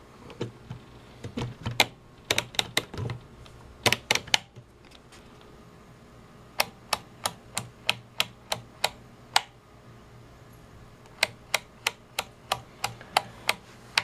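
Rotary function switch of a Fluke 17B+ multimeter being turned by a motor-driven fork, clicking through its detent positions in runs of about three clicks a second with a short pause between runs. These are switch cycles in a life test of roughly 49,000 cycles. In the first few seconds there are irregular clicks and knocks as the fork is fitted onto the knob.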